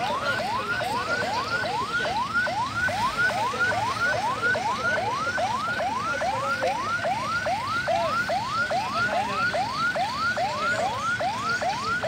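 Ambulance siren on a fast yelp: a rising wail that snaps back and repeats about two and a half times a second, without a break.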